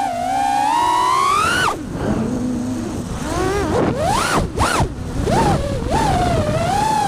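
FPV quadcopter's brushless motors whining, the pitch swooping up and down quickly as the throttle changes, over a rushing hiss.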